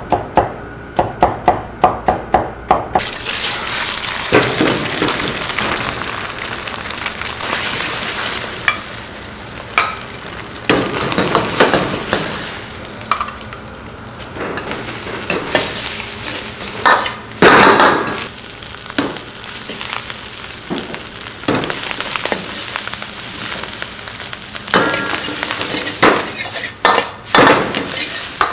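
A cleaver chopping quickly on a cutting board at about four strokes a second, stopping about three seconds in. Then fried rice sizzles in a wok over a gas flame, with a metal ladle scraping and knocking against the wok during stir-frying.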